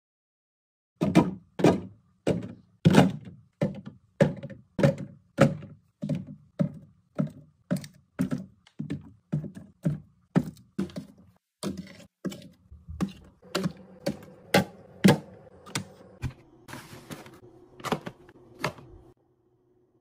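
Drink bottles, juice boxes and cartons being set down one after another on refrigerator shelves: a steady run of short thunks and knocks, about three every two seconds, over a low hum.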